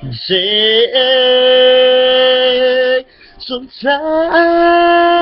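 A singer holding two long, steady notes without words: the first lasts about two seconds, and the second starts about four seconds in.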